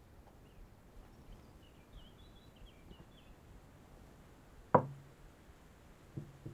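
A cup set down on a wooden table: one sharp knock with a short low ring after it, about two-thirds of the way through, then two lighter knocks near the end. Faint bird chirps in the background during the first half.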